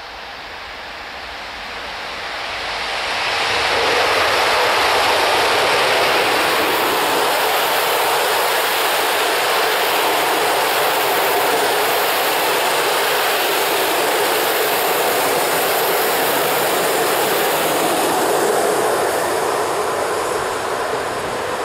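Intercity passenger train hauled by an EP07 electric locomotive passing close at speed: a steady rush of wheels on rails that builds over the first few seconds, holds while the coaches go by, then fades near the end.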